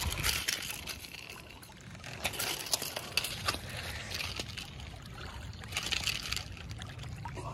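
River water lapping and trickling along a rocky shore, with scattered small clicks and taps.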